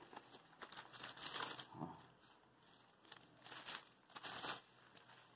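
Faint crinkling and rustling of plastic packaging in irregular patches, as a keyboard is lifted out of its box.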